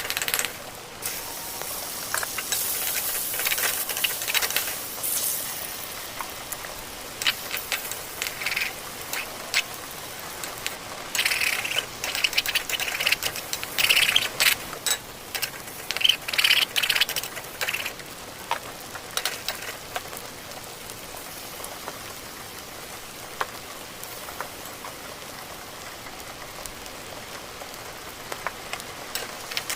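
Someone eating stir-fried instant noodles close to the microphone: irregular wet chewing and slurping with small clicks of utensils. It is busiest in the first half and thins out to occasional clicks later.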